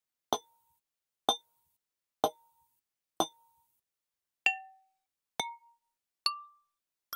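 Eight single strikes on glass bowls, each a short glassy ring, about a second apart. The first four ring at the same pitch. The next four step upward in pitch from strike to strike, following the bowls from largest to smallest. These are modal-synthesized impact sounds compared across bowl sizes: one series keeps the same pitch whatever the size, and the other shifts pitch with the shape.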